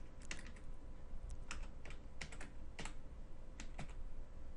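Typing on a computer keyboard: a run of separate key clicks at an uneven pace, with short pauses between them.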